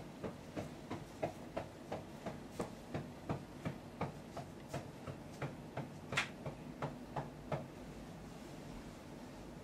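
Soft, quick taps about three a second from a hand patting a newborn's back as he is held upright against the shoulder. The patting stops a little before the end, leaving only a faint steady hum.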